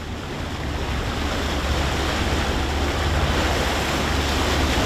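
Wind and rushing sea around a sailboat under way offshore, with wind buffeting the microphone and a steady low rumble.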